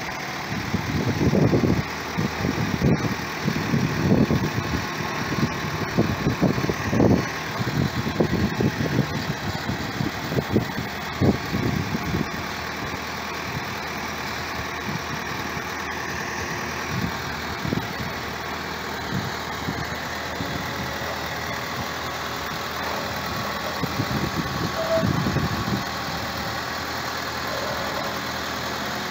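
Telehandler's diesel engine running slowly under light load as it tows a keelboat on a wheeled cradle. Irregular low rumbles come and go over the engine through the first twelve seconds and again about twenty-five seconds in.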